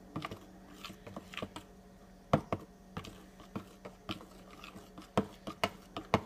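A utensil stirring a mixture in a dish, knocking and scraping against it in irregular clicks and taps, the loudest about two and a half seconds in, at five seconds and near the end.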